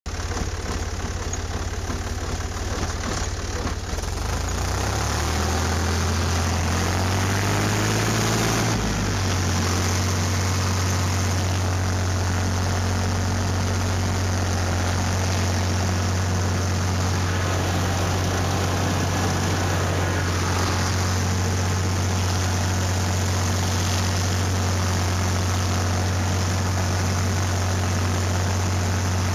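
Tractor engine running, rising in pitch over several seconds early on and then holding a steady note as it drives between the orchard rows.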